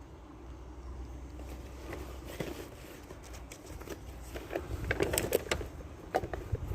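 Footsteps with rustling handling noise, and a run of crackling clicks about five seconds in.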